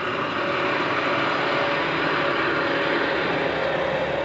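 Heavy truck's diesel engine running steadily, a constant drone with a held hum.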